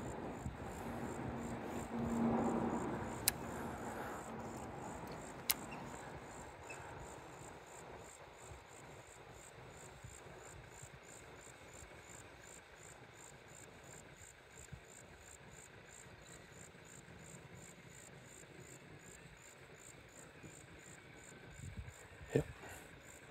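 Insects chirping in a steady, high-pitched pulsing rhythm. In the first few seconds a low rumble fades away, and two sharp clicks come about three and five seconds in.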